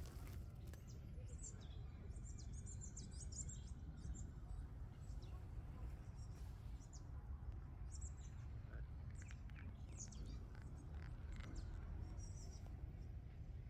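Small birds chirping in short, high, scattered calls over a steady low background rumble.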